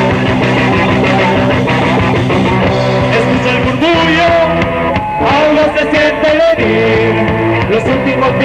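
A rock band playing a song live, with a wavering lead melody over the band in the middle of the passage.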